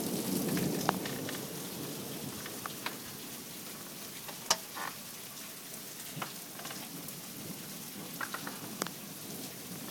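Heavy rain and hail during a thunderstorm: a steady hiss of rain with scattered sharp ticks of hailstones hitting, the loudest about halfway through.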